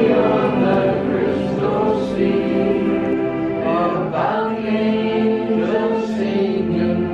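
Choral music: a choir singing long held notes that change about once a second, with no speech over it.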